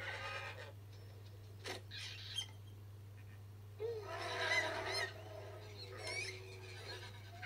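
Cartoon animal calls from an animated show, played through a TV speaker: short pitched calls that glide in pitch, the loudest about four seconds in, with a sharp click near the two-second mark, over a steady low electrical hum.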